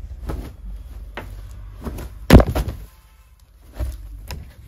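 About six dull thumps with fabric rustling as a folded suit is handled and laid down on a sheet-covered floor. The loudest thump comes a little after two seconds in.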